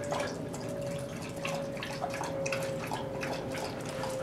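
A dog lapping water from a metal bowl: a run of quick wet laps, about three or four a second, over a faint steady hum.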